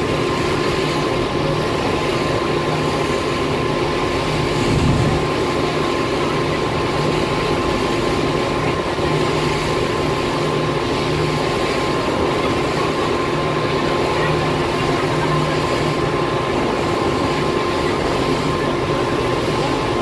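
A boat's engine drones steadily under way over a constant rush of wind and water. There is a brief low thud about five seconds in.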